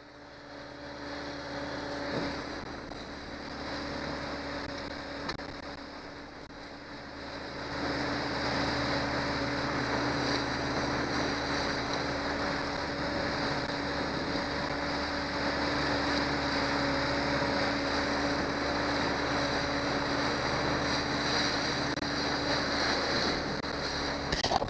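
Johnson 90 hp outboard motor running steadily with the boat under way, its drone mixed with water rushing past the hull and wind on the microphone. The sound grows louder about a third of the way in and stays there.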